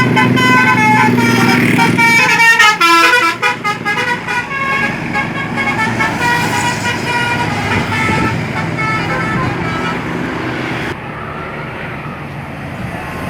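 Bus 'telolet basuri' musical horn playing a tune of held notes that step up and down in pitch. There is a fast warbling run about three seconds in. The notes grow fainter and stop about eleven seconds in, leaving engine and road noise.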